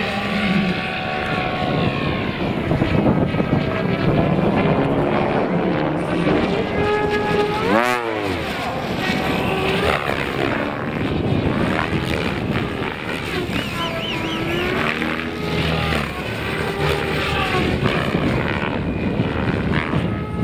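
Several electric RC helicopters flying aerobatics together. Their rotors and motors give off a dense whine whose pitches glide up and down and cross one another, with a sharp swoop in pitch about eight seconds in.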